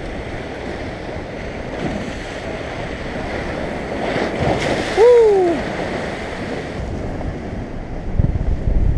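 Steady wind and lapping waves, with wind buffeting the microphone. About halfway through, a single short pitched call rises and then falls; a few low thumps come near the end.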